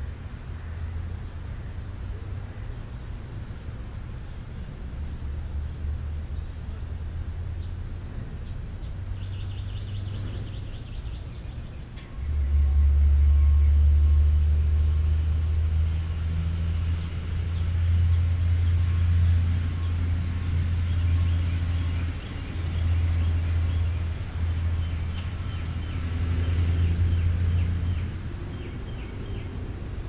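A loud low rumble that starts suddenly about twelve seconds in, swells and dips for about a quarter of a minute, then drops away near the end, over faint, rapid high bird chirps.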